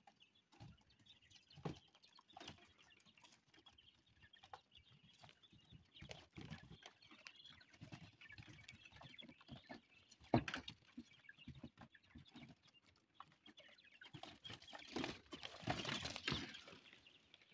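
Young quail chirping faintly in a brooder box, with scattered light taps and knocks; the chirping is strongest near the end.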